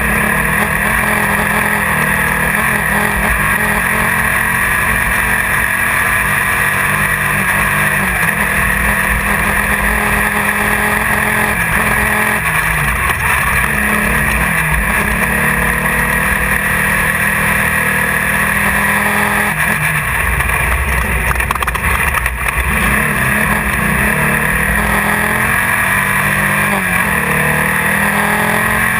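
1600-class off-road race car's engine running hard under load, heard from inside the car, its pitch rising and falling with the throttle over a steady rush of noise.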